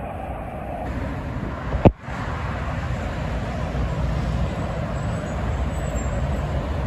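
Steady highway traffic noise: tractor-trailers and cars passing, a low rumble of engines and tyres. A single sharp click about two seconds in is the loudest moment.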